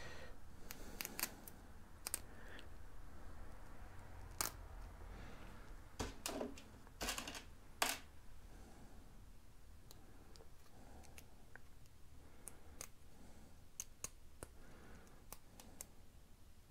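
Quiet, scattered small clicks and taps of tiny screws and plastic control-horn parts being picked out of a plastic parts tray and handled. The clicks are loudest in a cluster about six to eight seconds in, with fainter ticks after.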